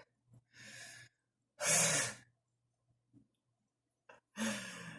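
A man's heavy breathing and sighs: three exhalations, the loudest about two seconds in, as he catches his breath after chugging a can of sparkling water.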